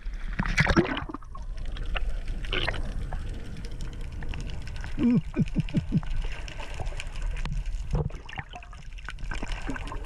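Sea water sloshing and splashing at the surface, then the muffled underwater sound of swimmers diving, with a quick run of gurgling bubbles about five seconds in.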